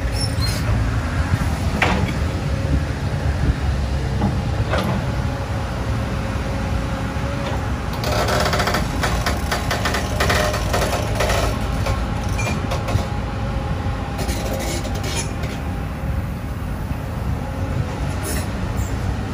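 Hyundai 220LC-9S crawler excavator running while it digs and dumps sand: a steady diesel engine rumble with hydraulic work. A busy run of metallic clanks and rattles comes in the middle.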